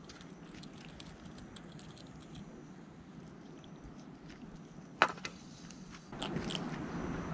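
Small horse mackerel being landed on a fishing line: faint light ticks, one sharp knock about five seconds in, then louder close rustling and handling noise from about six seconds as the fish is grabbed by hand.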